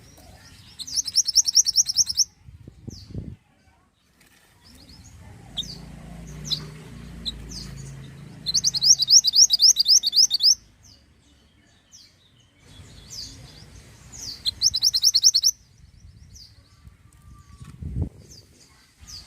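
Mantenan songbird singing: three bursts of rapid, high trilled notes, roughly eight a second, with scattered single high chips between them. A low thump sounds near the end.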